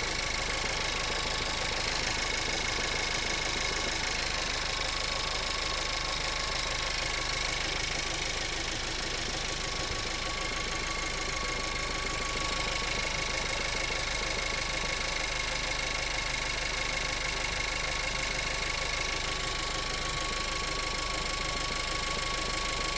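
Volkswagen-group 1.4 TSI (CZDA) turbocharged four-cylinder petrol engine idling steadily with a knock, a fault on a new engine that the owner says sets in about two minutes after start-up, stays once warm and goes away in Drive.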